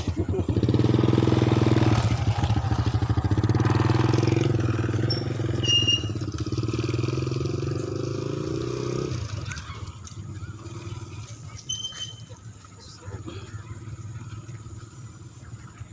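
Small motorcycle engine running just after being started, steady for about nine seconds, then suddenly much quieter.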